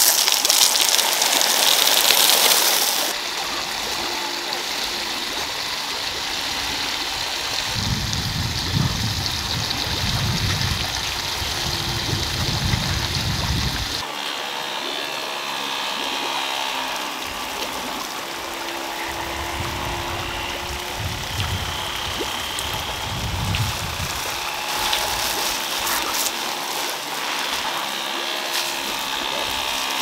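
Running water, a steady rushing flow. It is brighter and hissier for the first three seconds, then changes abruptly to a softer flow with low rumbling patches.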